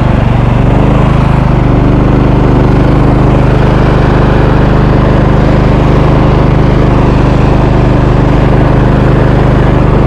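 Riding lawn mower's gasoline engine running loud and steady at high throttle, close to the microphone, while it tows a sled through snow. Its pitch settles in the first second or so, then holds even.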